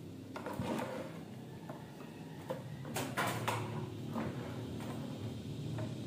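Handling noises: a few knocks, clicks and rustles as a VGA cable is handled and a computer monitor is turned on a desk. The clearest knocks come about half a second in and around three seconds in.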